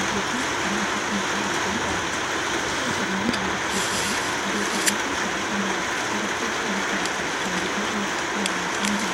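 Iceberg slime, with its hardened crunchy top layer, being pressed and worked by hand: dense, steady crackling with scattered sharper clicks.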